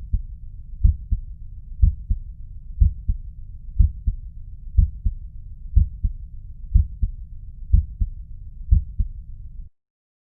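Recorded human heart sounds: a steady lub-dub at about one beat a second, each beat a louder thump followed closely by a softer one, over a steady low rumble between the beats. The recording cuts off near the end.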